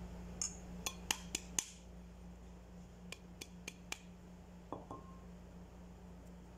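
Light clinks of a metal spoon against a pan and a glass bowl: a quick run of about five sharp clinks, a pause, then four more. About five seconds in comes one duller knock with a short ring.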